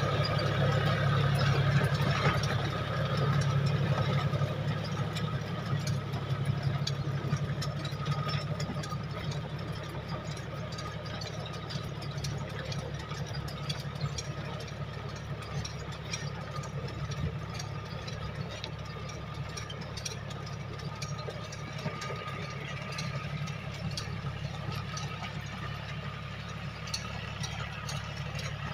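John Deere tractor's diesel engine running steadily under load as it pulls a rotavator through the soil, louder for the first few seconds and then settling to a steady hum.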